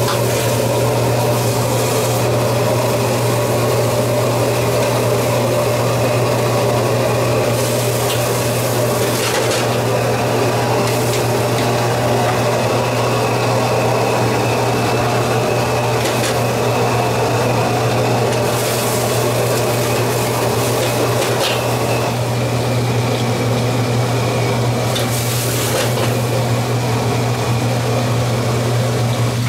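Sunfish pieces stir-fried in a wok over a gas wok stove: a steady, loud hum and hiss of the burner and frying. A metal ladle scrapes and knocks against the wok every few seconds.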